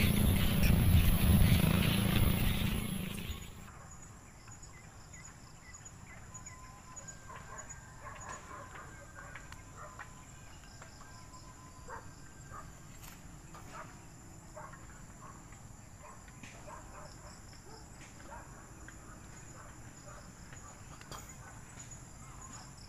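A loud rush of wind on the microphone for about the first three seconds, then quiet outdoor evening ambience: a steady high-pitched insect drone with faint, scattered bird chirps.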